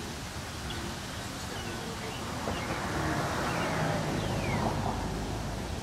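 Outdoor background noise with a low rumble that swells about halfway through and eases near the end, and a few faint, short chirps above it.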